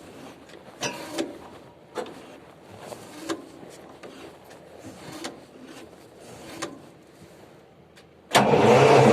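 Scattered faint clicks and knocks, then about eight seconds in the engine of a 1000 kVA diesel generator comes in abruptly, loud and steady. It is a start attempt on a generator that is hard to start.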